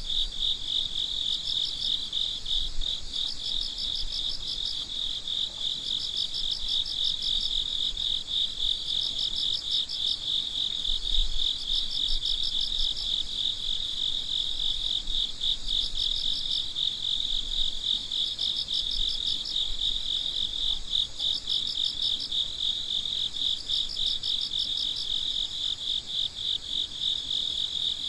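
Crickets chirping at night: a steady, rapidly pulsing trill, with a second, slightly higher cricket chirping in short bursts every few seconds.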